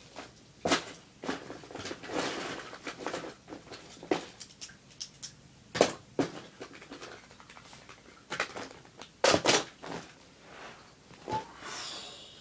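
Someone rummaging through things: irregular knocks, clicks and rustling as objects are moved about and set down.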